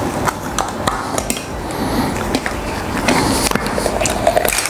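A stainless steel mixer-grinder jar and its lid being handled: scattered clicks and knocks, with no motor running.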